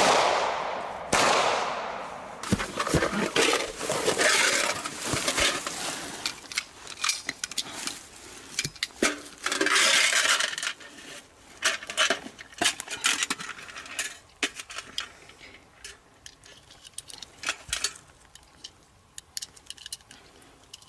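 A long run of sharp crashes and impacts, with glass and metal clinking and breaking. It is densest in the first half and thins out toward the end.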